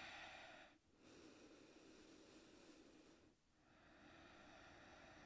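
Faint, slow breathing of a person holding a yoga stretch: long soft breaths of two to three seconds each, with short pauses about a second in and a little past three seconds.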